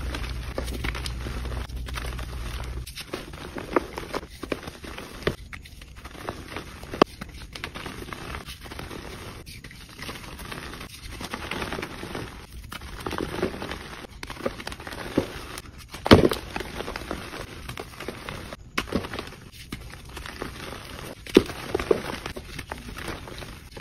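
Hands squeezing and crumbling soft blocks of reformed gym chalk: a soft, powdery crunching and crackling, broken by irregular small snaps. A sharper, louder crunch comes about sixteen seconds in.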